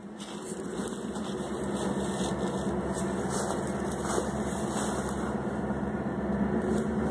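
Diesel locomotive engines of an approaching train running with a steady low drone, growing louder over the first two seconds and then holding steady.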